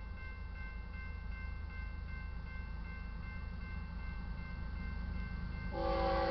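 Railroad crossing bell ringing steadily over a low rumble as the train approaches; about half a second before the end the lead locomotive, a GE ES44C4, sounds its horn loudly.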